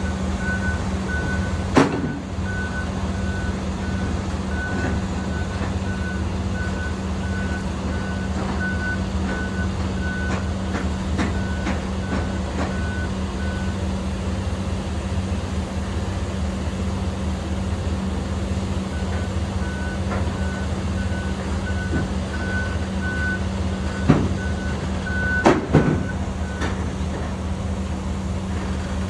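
Forklift reversing alarm beeping steadily, stopping for a few seconds mid-way and then starting again, over the steady hum of an idling engine. A few sharp knocks, the loudest about two seconds in and two more near the end.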